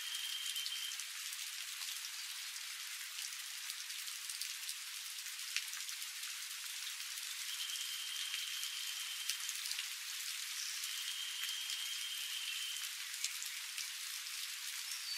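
Steady rain falling, an even hiss with a few louder single drops. A thin, high steady note sounds three times over it, each lasting one to two seconds.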